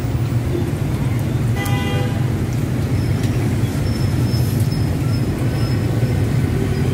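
Steady low rumble of street traffic, with a short horn toot about a second and a half in.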